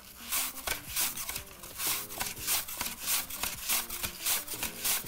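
Peeled green apple being sliced on a mandoline, pushed back and forth across the blade with the hand guard: a rasping stroke about twice a second.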